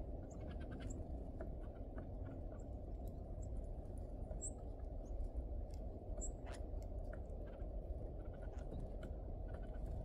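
Birds giving scattered short chirps and clicks over a steady low background hum.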